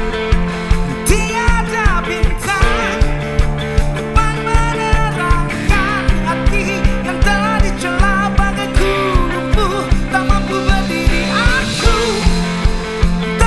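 Rock band playing a song: drums keep a steady beat of about two hits a second under bass and guitar, with a lead melody on top.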